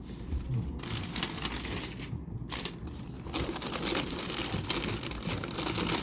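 Packaging wrapping crinkling as it is handled during a shoe unboxing. The crinkling starts about a second in, pauses briefly a little after two seconds, then carries on.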